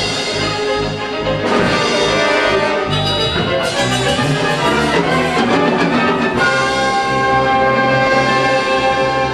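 Musical-theatre orchestra playing scene-change music with brass to the fore, settling into long held chords about two-thirds of the way in.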